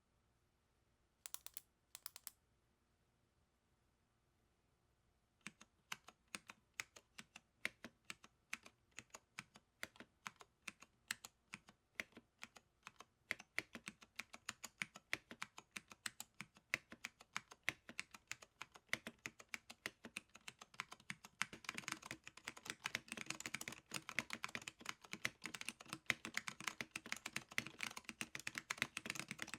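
Custom 60% mechanical keyboard with tactile Alps SKCM Brown switches, a POM plate and IBM 5140 keycaps being typed on. A few keystrokes come first, then a pause of a few seconds. Steady, evenly spaced keystrokes follow and speed up into fast continuous typing about three quarters of the way through.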